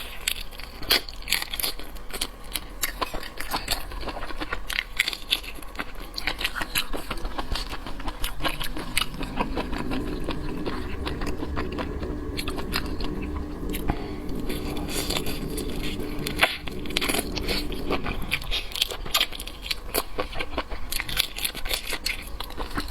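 Close-up eating sounds of seafood being bitten and chewed: wet crunching and dense clicking throughout. A steady low hum runs through the middle for about nine seconds.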